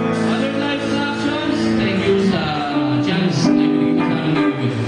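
A live band plays held chords on electric guitar and bass guitar, with a man singing into a microphone.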